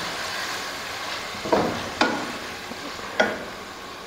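Marinated beef pieces sizzling in oil in a metal pan while a wooden spatula stirs them, with three sharp knocks of the spatula against the pan in the second half.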